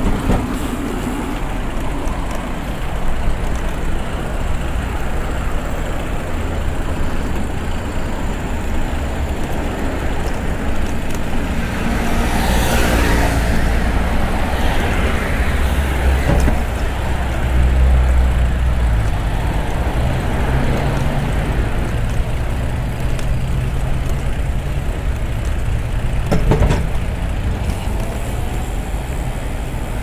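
Steady road traffic noise. One vehicle passes close about twelve seconds in, swelling and fading over a couple of seconds. A deeper low rumble peaks a few seconds later, and a short sharp knock comes near the end.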